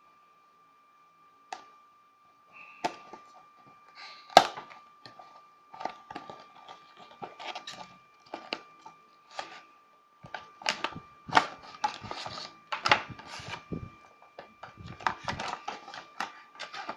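Headphone packaging being opened and its contents handled by hand: irregular clicks, taps and rustles, the sharpest about four seconds in. A faint steady high whine sits underneath.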